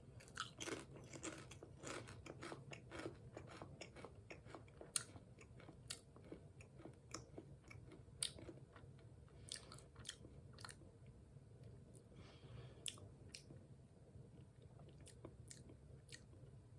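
A person biting and chewing Lay's potato chips: quick, irregular crunches, thickest over the first few seconds and then more spaced out.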